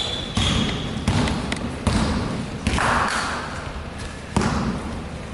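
Basketball being bounced on a court floor during a game: a few irregularly spaced thuds, with a brief high squeak in the first second.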